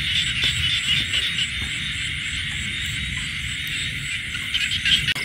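Night chorus of frogs and insects calling together in a steady, dense chirring, over a low rustle of people walking through dry grass.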